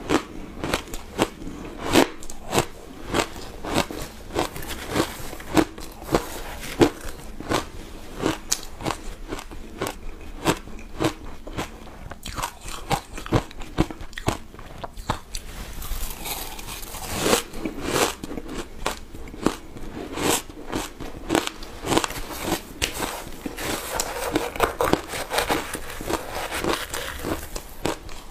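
Shaved ice dusted with matcha powder being bitten and chewed, in a fast, irregular run of sharp crunches.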